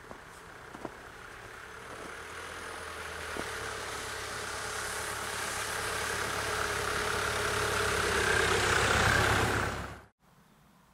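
A car's engine and tyres on a snowy road, growing steadily louder for about ten seconds as it approaches, then cut off abruptly.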